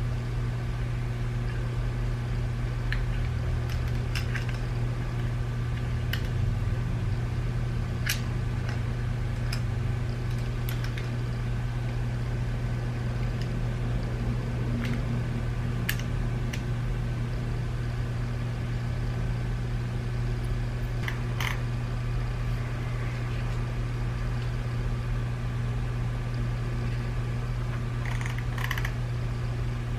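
A steady low hum, with a few scattered small clicks and taps from the plastic parts of a BMW iDrive controller being handled and prised apart, more of them near the end.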